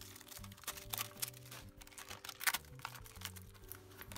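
Packing tape and a plastic sleeve being peeled off a small plant pot, crinkling and tearing in a series of sharp crackles, the loudest about two and a half seconds in, over soft background music.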